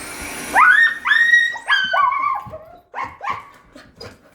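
Nova Scotia duck tolling retriever giving a run of about six high-pitched whining yelps, each sliding up in pitch and then held briefly, after a short hiss at the start.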